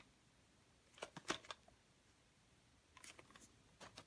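Faint handling noise from a VHS tape box being turned over in the hand: a few soft clicks and rustles about a second in and again near the end, with near silence between.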